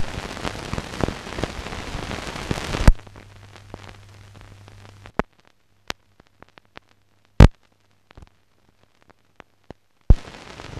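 Crackle and pops of an old film soundtrack carrying no programme sound. Dense crackling for about three seconds, then faint hiss with a low hum and scattered sharp pops, one loud pop a little past halfway.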